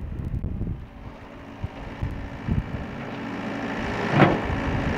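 Volvo compact excavator's diesel engine running under hydraulic load as the boom and arm lift, the hum growing steadily louder, with a single loud knock about four seconds in.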